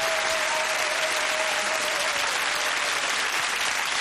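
Studio audience applauding steadily, with a faint held tone fading out about halfway through.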